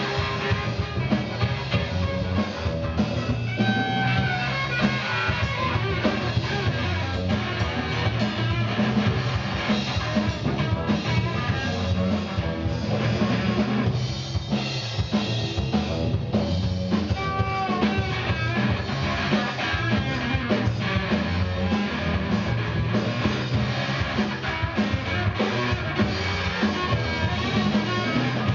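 Live rock band playing an instrumental passage on electric guitar and drum kit, loud and continuous, with no singing.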